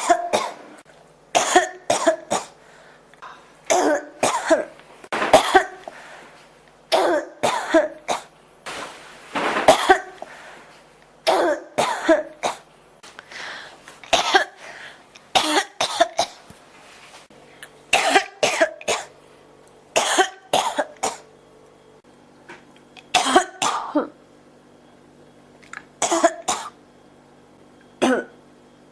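A person coughing over and over in a coughing fit, short sharp coughs in bouts of two or three every second or two, with a few seconds' pause near the end.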